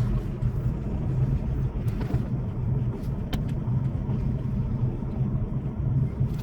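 Semi-truck diesel engine running steadily with a low hum, with a couple of sharp clicks.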